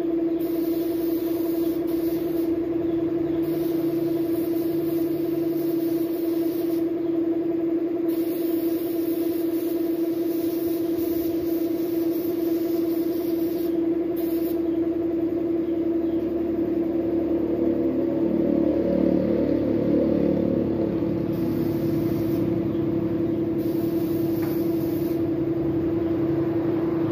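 Air compressor running with a steady hum while a gravity-feed spray gun hisses in long bursts as the trigger is pulled, laying the colour coat on motorcycle parts. The hissing mostly stops about halfway through and comes back in two short bursts near the end.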